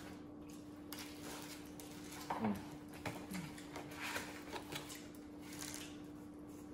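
Quiet eating at a table: scattered soft clicks, rustles and mouth sounds as hands pick food from cardboard pizza boxes, over a faint steady hum. A couple of brief voice sounds come near the middle.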